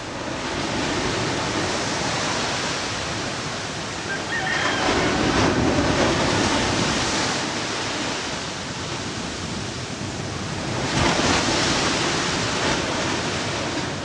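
Sea surf breaking and washing up a sandy beach. It is a steady rushing wash that swells louder twice, about five seconds in and again near the end.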